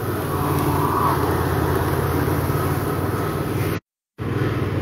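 A steady, low mechanical drone, like an engine idling, with no change in pitch; the sound cuts out completely for a moment near the end.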